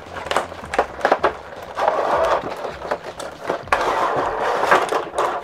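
Cardboard box and clear plastic blister tray crackling and scraping as the tray is slid out of the box, with many sharp clicks and two longer stretches of rustling, about two seconds in and again near the end.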